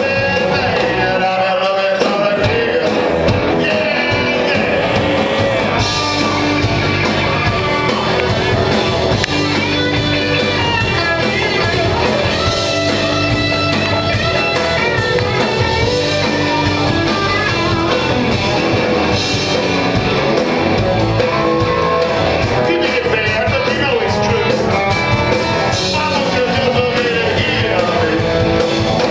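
Live rock band playing: a male singer over electric guitars, bass and drums.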